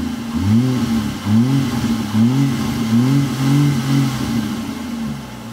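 2011 Lincoln MKS 3.7 V6 revved in quick blips while parked, heard through an axle-back exhaust with Vibrant Performance mufflers and quad tips. The pitch rises and falls about once a second, and it settles back toward idle near the end.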